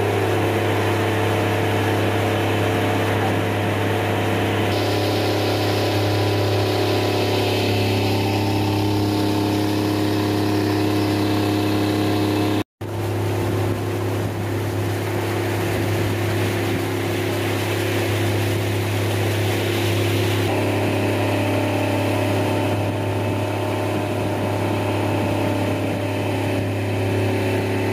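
Outboard motor running steadily at cruising speed, with water rushing along the hull of the moving boat. The sound drops out for a moment about halfway through.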